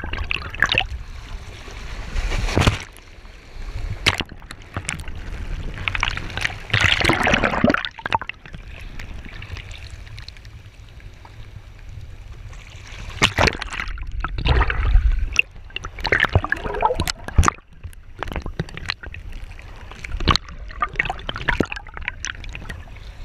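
Water sloshing and gurgling around a camera at the water's surface as it dips in and out of shallow water, in irregular surges, with many scattered sharp clicks.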